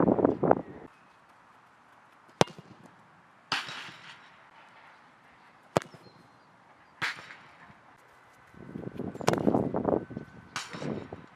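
Football shots: a sharp strike of the ball, then about a second later a softer hit as it meets the goal's crossbar, twice in a row. Near the end there are a few seconds of louder, rough noise.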